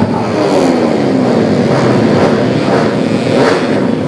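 Race-tuned automatic scooter engines, a Yamaha Mio J bored to 130cc among them, running hard on a road-race circuit. The engine note swings up and down, with a pitch falling steadily from about half a second to two seconds in, and more than one engine audible at once.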